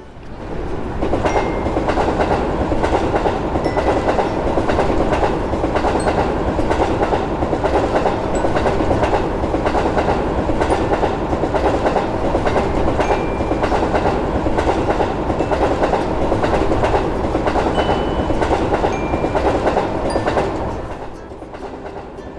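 Train passing, a steady rumble with wheels clattering over the rail joints, which starts abruptly and fades away about 21 seconds in.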